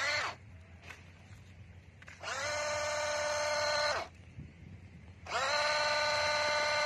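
Small electric motor of a toy RC off-road truck whining under throttle: a short rising blip at the start, then two long whines, each rising in pitch as it spins up and then holding steady.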